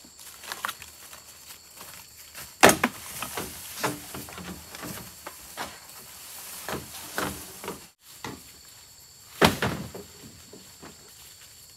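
Scattered knocks and clattering handling noises, with two louder knocks, about three seconds and about nine and a half seconds in.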